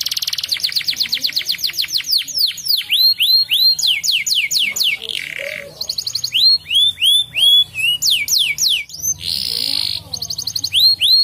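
Domestic canary singing a long, continuous song. It opens on a fast trill, then moves through runs of quick downward-sweeping whistled notes, with short buzzy rattles about five seconds in and again near the end.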